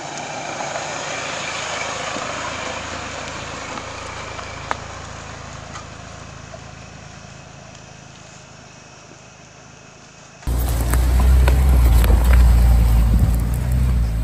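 Ford Bronco Sport small SUV driving slowly on a dirt trail, its engine and tyres rising as it comes past and then fading as it moves away, with a single sharp click about five seconds in. About ten seconds in the sound cuts abruptly to a louder, closer take with a heavy low rumble.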